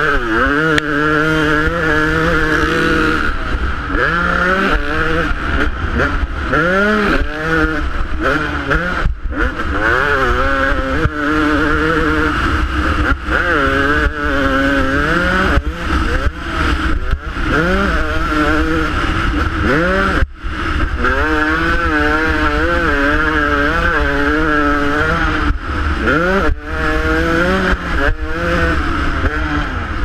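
Motocross bike engine heard from the rider's helmet, revving up and dropping back over and over as it is ridden hard around the track, with the throttle cut briefly a few times. Wind rushes over the microphone throughout.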